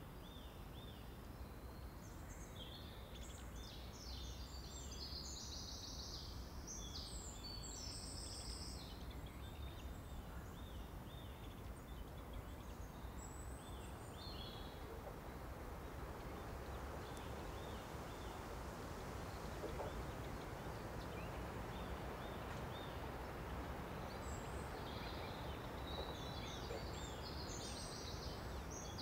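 Wetland ambience with birdsong: a bird sings rapid, varied high phrases in the first few seconds and again near the end, while short high calls repeat steadily in between over a low steady rumble.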